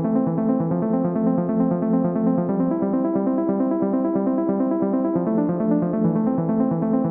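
Song intro played on a synthesizer keyboard: a steady, repeating pattern of notes with a piano-like sound, without drums or vocals.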